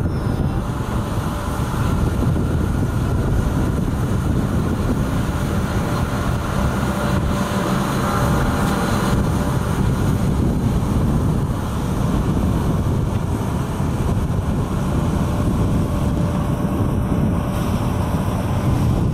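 Steam locomotive C11 123 and its train rolling slowly through a yard, a steady rumble with wind buffeting the microphone.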